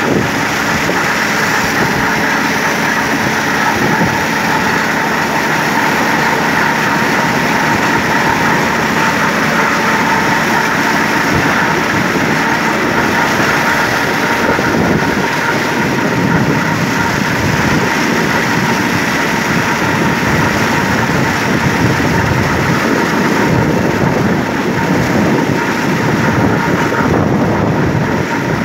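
Tümosan 5275 tractor's diesel engine running steadily under load, driving a Türkay drum mower cutting standing triticale. A loud, continuous mechanical din with a steady high whine from the spinning drums.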